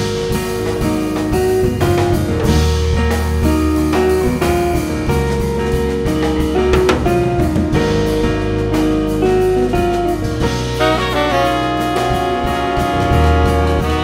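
Live jazz ensemble playing: alto and tenor saxophones and trumpet play held notes together over piano, guitar, bass and drum kit.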